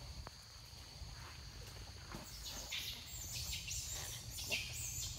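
Steady high drone of insects, with a run of quick, high descending chirps starting about two seconds in and repeating several times a second.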